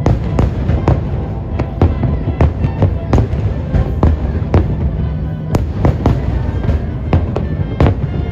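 Aerial fireworks bursting in quick succession, about two or three sharp bangs a second, over background music.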